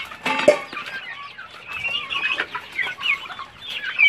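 A flock of chickens clucking, many short calls overlapping throughout, with a sharp knock about half a second in.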